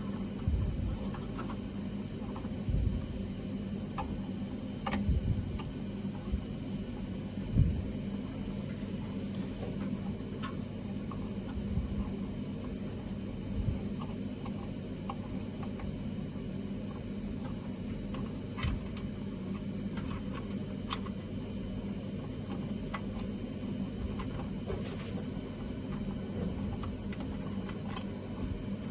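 Steady low machine hum with a faint steady tone, and a few scattered small clicks and knocks.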